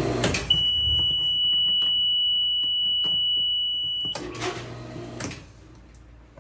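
A pool pump's running hum cuts off with a click as its Stingl Switch safety control is switched off, and a steady, high-pitched electronic alarm beep sounds for about three and a half seconds, then stops with a click.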